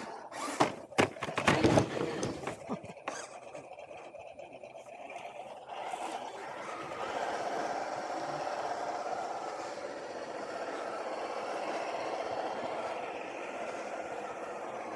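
Electric motor and gearbox of an RC scale crawler, the Carisma SCA-1E Range Rover, picked up close by a camera on its bonnet. A cluster of sharp knocks comes in the first few seconds, then from about six seconds in a steady drivetrain whine as the truck drives on.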